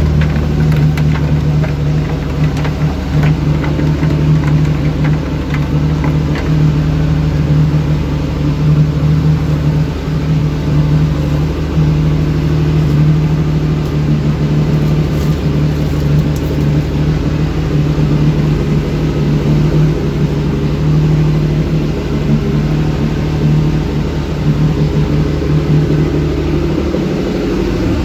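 Small fishing boat's motor running at a steady cruising speed, a constant hum over the rush of water along the hull. The engine note shifts slightly near the end.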